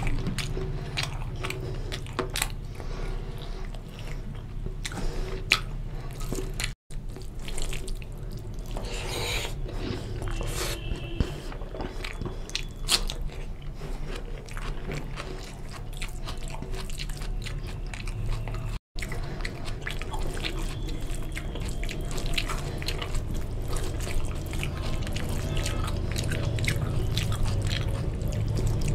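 Close-miked mouth sounds of a person eating chicken curry and rice by hand: wet chewing, lip smacks and small sharp clicks, with a crunching bite of raw onion about midway, over a steady low hum. The sound cuts out completely for an instant twice.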